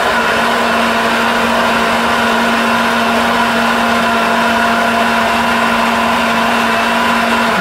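Countertop blender held on pulse, its motor running at a steady high speed as it blends a liquid shake of raw eggs, banana and half-and-half. Near the end the motor is released and begins to wind down.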